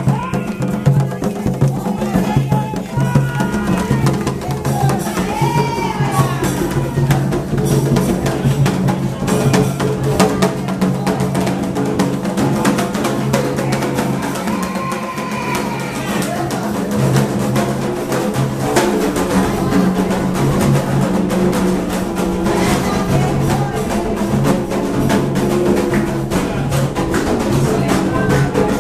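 Live percussion music with drums and a clacking wooden or metal beat kept up steadily, with voices singing over it: Afro-Brazilian religious drumming and chanting for Xangô.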